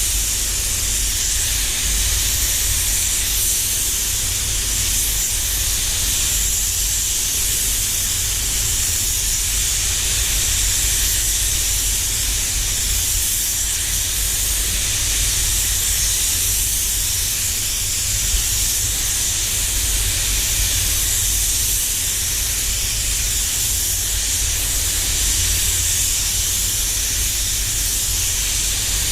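Paint spray gun hissing steadily as it atomises clear coat at about 1.8 kgf air pressure, over a steady low rumble.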